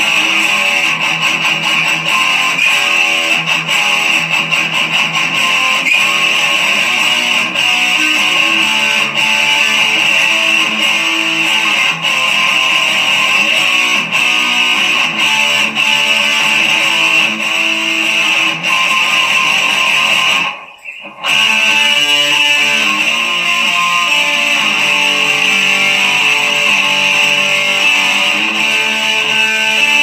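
Background music with strummed electric guitar, continuous apart from a brief break about two-thirds of the way through.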